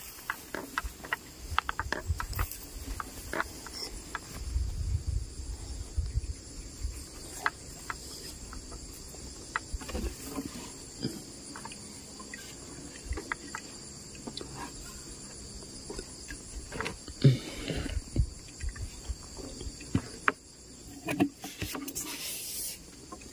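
Steady high-pitched drone of insects, crickets among them, with scattered clicks, knocks and a few low thumps over it.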